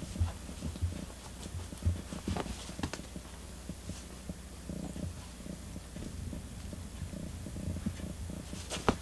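Two cats play-wrestling on a cork floor: soft bumps and scuffles in the first few seconds, a low steady sound from about halfway to near the end, and a couple of sharp taps at the very end.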